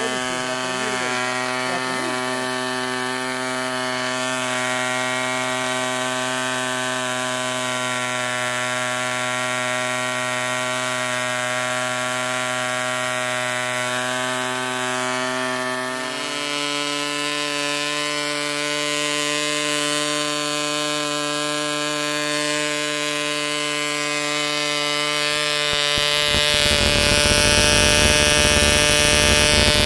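Super Tigre G20 model-aircraft diesel engine running steadily at high speed, turning a 9x8 propeller at about 11,000 rpm, with a constant buzzing drone; the restored engine is running after its broken crankshaft was repaired. About halfway through its pitch steps up slightly, and near the end a louder rushing noise is added.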